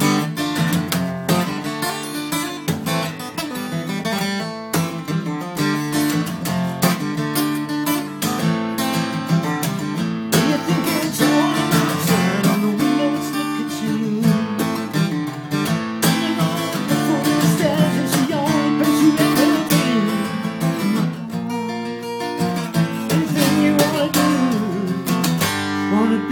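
Steel-string acoustic guitar strummed in a steady rhythm, chords ringing out.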